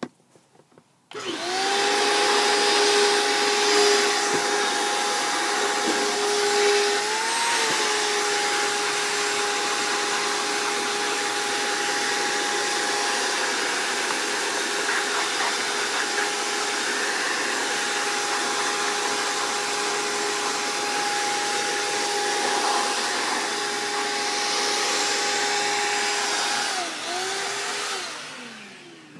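Small electric vacuum with a corrugated hose switches on about a second in and runs with a steady whine, cleaning sawdust from a wood carving. Its pitch rises briefly about seven seconds in, and near the end it is switched off and winds down with a falling pitch.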